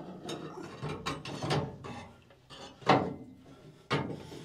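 Metal rod and metal plate clanking and scraping together as the rod is worked down through a hole in the plate, with a sharp clank about three seconds in and another about a second later.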